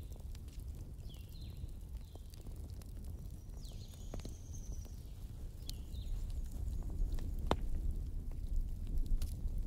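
Steady low background rumble, with a few short, high, falling chirps scattered through it and some light clicks.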